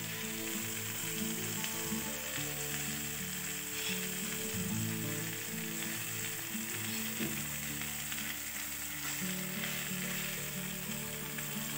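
Marinated chicken pieces sizzling on a hot stovetop grill pan as they are brushed with spice paste, with background music.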